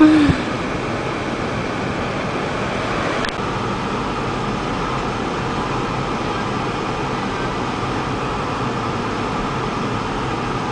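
Steady road and engine noise from inside a moving car.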